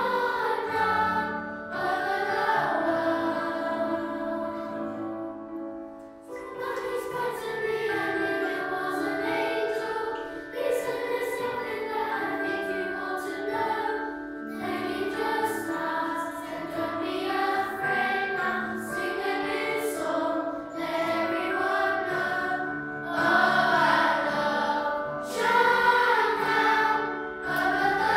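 A primary school children's choir singing a Christmas carol, with a short break between phrases about six seconds in before the voices come back in.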